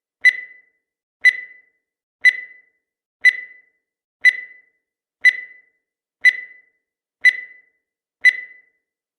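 Countdown timer sound effect: a short, high-pitched electronic beep once a second, nine in all, each fading quickly.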